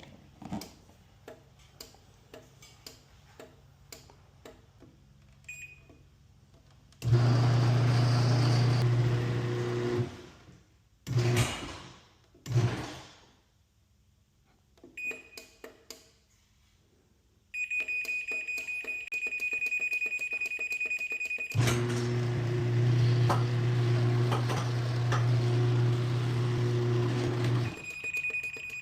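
Garage door opener motor running the door for about three seconds, then two short jogs, then a longer run of about six seconds. A steady high tone sounds from about two-thirds of the way in, over the last run. Light clicks come before the motor starts.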